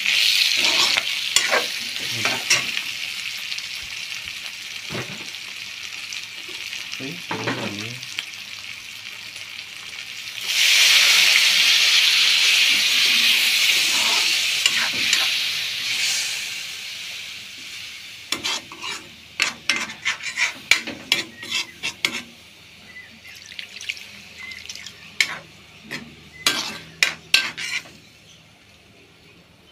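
Pork pieces sizzling in a hot metal kadai, stirred with a metal spatula that clicks and scrapes against the pan. About ten seconds in the sizzling jumps suddenly much louder as liquid goes into the hot pan, then fades; in the second half the sizzle is quieter and the spatula's clicks on the metal stand out.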